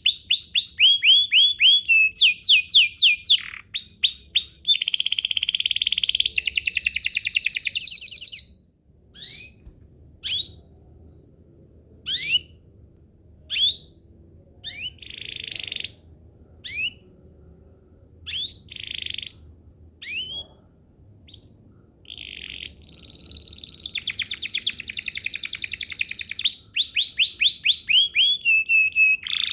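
Domestic canary singing: fast rolling trills and quick falling sweeps, which break off after about eight seconds into single sharp downward chirps about once a second, before dense trilling starts up again in the last third.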